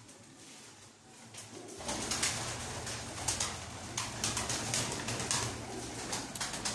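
Domestic pigeons cooing in a loft, joined from about two seconds in by a louder rustling, clicking noise.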